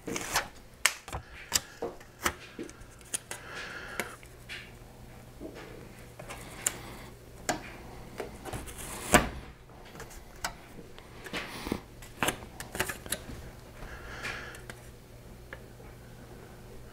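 Aluminium foil tape crackling and crinkling as it is handled and smoothed onto a plastic bumper, in many sharp clicks and short rustles; the loudest crackle comes about nine seconds in. A faint steady low hum runs underneath.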